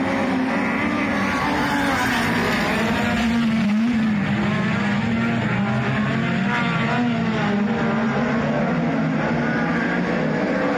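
Several speedway race cars lapping a dirt oval together, their engines overlapping in a steady, loud drone whose pitch rises and falls as they go through the turns and down the straights.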